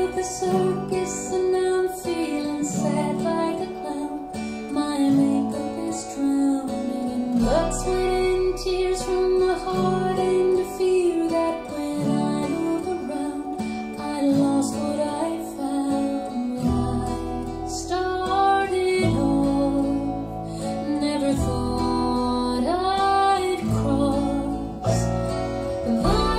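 Recorded song with acoustic guitar and a female voice singing, played through YG Acoustics Carmel 2 loudspeakers and picked up by microphones in the listening room.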